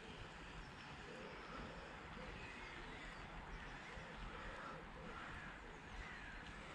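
Faint bird calls, a run of short repeated notes with a few higher falling ones, over a quiet outdoor background.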